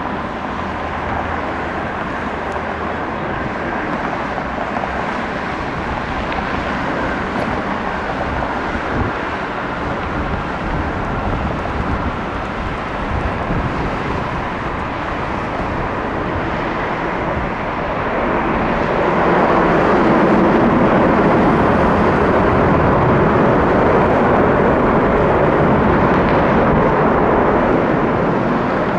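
Antonov An-124's four D-18T turbofan engines running, a steady jet rumble and roar that swells louder about two-thirds of the way through and stays up.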